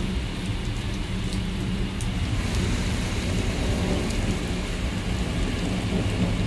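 Heavy rain pouring down steadily with a low rumble of thunder, a little louder from about two and a half seconds in.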